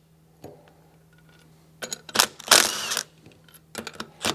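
Cordless impact wrench with a 5/8-inch socket running in one short burst about halfway through, hammering a case bolt loose. A few sharp clicks of metal on metal come just before it and again near the end.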